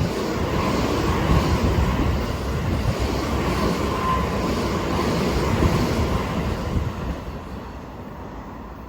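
Seibu Line electric train passing close by at speed: a steady rush of wheel and air noise with a faint high whine, dying away about seven seconds in.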